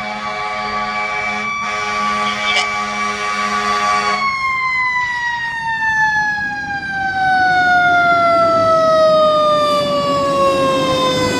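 Fire truck siren holding one steady high wail, then about four seconds in sliding slowly and evenly down in pitch. A truck engine rumble under it grows louder in the second half.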